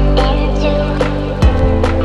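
Background music: held bass and melody notes with drum hits.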